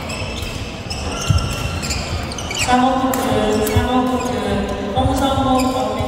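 Badminton play in a large indoor hall: sharp shuttlecock hits and thuds of footwork on the court, with a pitched voice calling out from about three seconds in.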